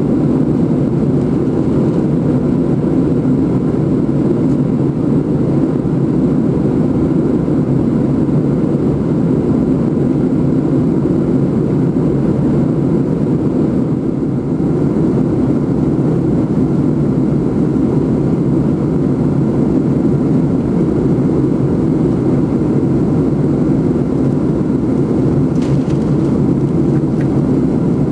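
Airliner cabin noise in cruise flight: a loud, steady rumble of engine and airflow that does not change.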